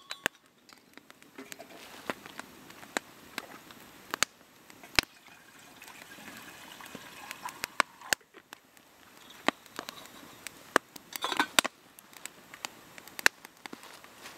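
Wood fire of split kindling crackling, with sharp pops scattered throughout. Water poured from a plastic bottle into a metal kettle on the grill around the middle, and a short cluster of knocks about two-thirds through.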